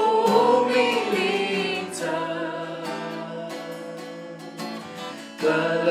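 A woman sings a slow hymn in Romanian to acoustic guitar accompaniment, holding a long wavering note on 'umilință'. The music drops softer after about two seconds and swells again near the end.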